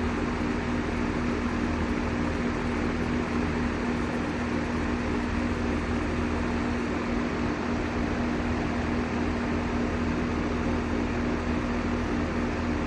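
Outdoor heat pump unit running steadily in cooling mode: a constant compressor hum under the even rush of the condenser fan.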